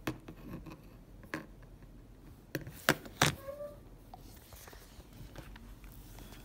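Handling noise from a Realme C35 smartphone: a few sharp clicks and taps as it is tapped and moved, the two loudest close together about three seconds in.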